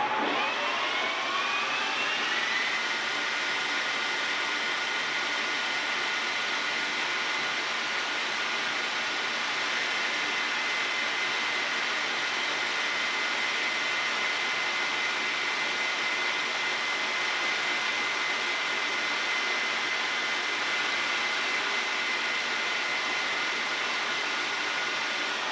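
Metal lathe winding up to speed with a rising whine over the first couple of seconds, then running steadily with a high whine. A carbide insert on a boring bar cuts the inside of a steel ring.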